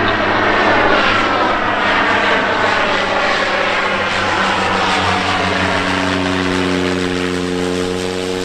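Cessna Caravan single-engine turboprop flying low past, its propeller and turbine drone sliding steadily down in pitch as it goes by, then fading a little as it moves away.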